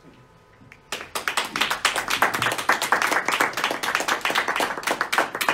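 Audience applause, many people clapping at once, starting suddenly about a second in.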